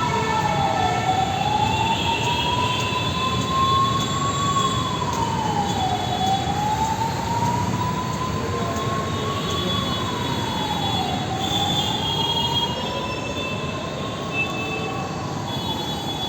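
Emergency vehicle siren wailing over a steady hiss of street traffic. Its pitch rises slowly for about four seconds, then falls away quickly, and the cycle repeats about every five seconds.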